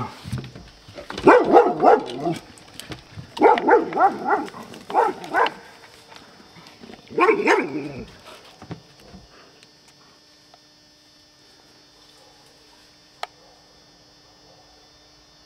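Dog barking at a black bear to chase it off, in three bouts of rapid barks over the first eight seconds or so. After that the barking stops, and a single sharp click comes near the end.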